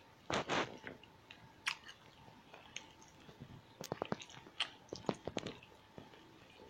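A person chewing food close to the microphone: wet mouth clicks and lip smacks, with a brief rush of noise about half a second in and a cluster of sharper smacks from about four to five and a half seconds in.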